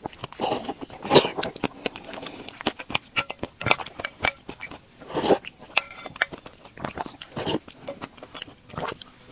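Close-miked eating sounds of someone chewing soft glutinous rice balls (tangyuan) in sweet soup, with irregular wet mouth noises and louder bites every second or two.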